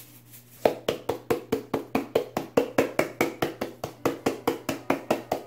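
Pepper grinder twisted by hand over meat: a rapid, even clicking of about five clicks a second that starts suddenly under a second in.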